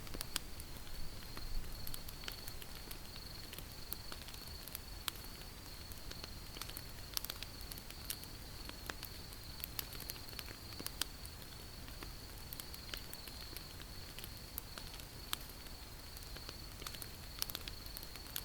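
Wood fire crackling: irregular sharp pops and snaps over a low hiss, with a steady high-pitched tone underneath.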